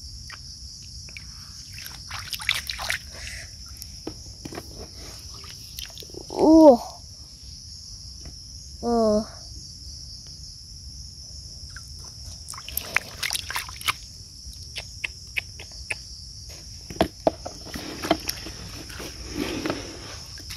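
Hands and bare feet squelching and splashing in muddy shallow water, in scattered bursts, over a steady high drone of insects. Two short vocal exclamations, about six and nine seconds in, are the loudest sounds.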